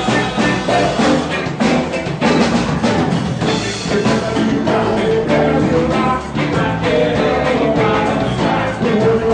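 Band music with a drum kit and singing.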